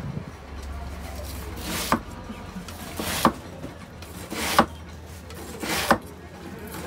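A handleless, blade-only knife pressed down through a slab of freshly made kaminari-okoshi (puffed rice bound with syrup, its surface set but its centre still soft) along a wooden guide bar. Four short rasping cuts a little over a second apart, each ending in a sharp tap as the blade meets the board.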